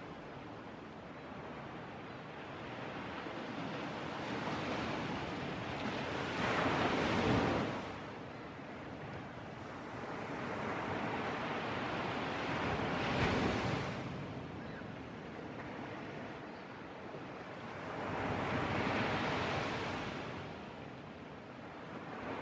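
Sea surf breaking on a beach, a steady wash that swells to a louder crash about every six seconds, three times.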